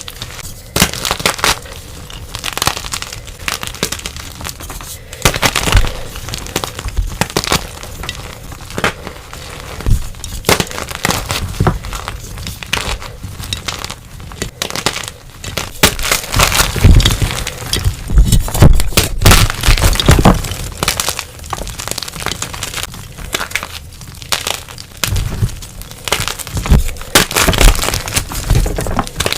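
Blocks of dyed gym chalk being crushed and crumbled, a dense run of crisp crunches and cracks with heavier crunches every few seconds.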